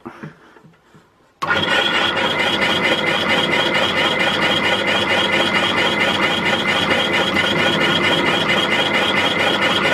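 Bench drill switched on about a second and a half in and running steadily at full speed with a fast even pulse, drilling a hole through the motor's metal brush plate.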